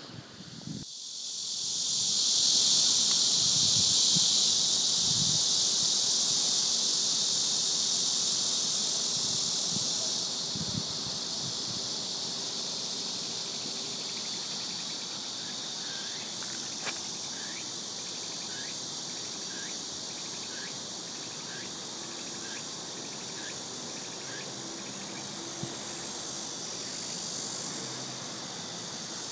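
Insect chorus: a dense, steady, high-pitched buzzing that swells in over the first two seconds and drops back somewhat about ten seconds in. In the second half a faint short chirp repeats about once a second over the buzz.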